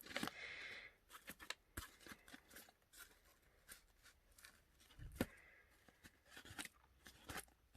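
Quiet rustling and small clicks of packaging and small items being handled, with a soft thump about five seconds in.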